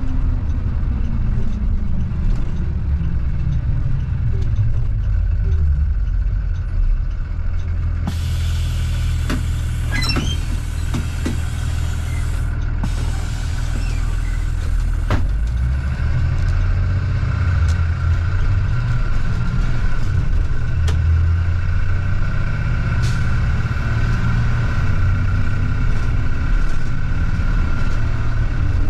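Blue Bird school bus driving, heard from inside the cabin: a steady low engine rumble with road noise. There are a few sharp clicks and rattles around ten seconds in, and a faint steady whine later on.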